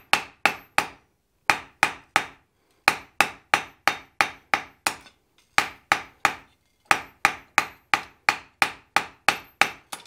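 Hand hammer striking a red-hot steel tail taper on an anvil: quick, regular ringing blows about four to five a second, in runs with short pauses, as the square taper is knocked down to an octagon.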